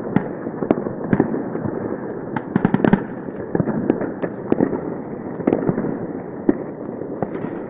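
Fireworks and firecrackers going off continuously across a city, a dense rumble of overlapping distant bangs with frequent sharp nearer cracks.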